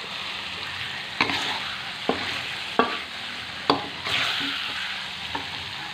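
Ground spice paste sizzling in oil in a wok while a spatula stirs it, with about five sharp clacks of the spatula against the pan at irregular intervals. The paste is being sautéed over medium heat until fully cooked.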